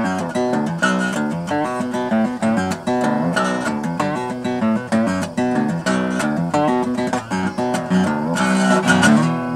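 Acoustic guitar played by hand: picked notes and chords in a steady, several-to-the-second pattern, with a louder strummed passage near the end.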